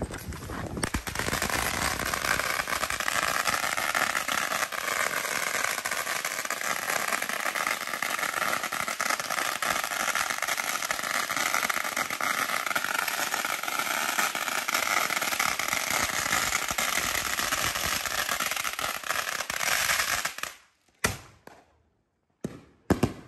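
A long string of firecrackers going off on the ground as one continuous, rapid crackle of pops for about twenty seconds. It cuts off suddenly, and a few short noises follow near the end.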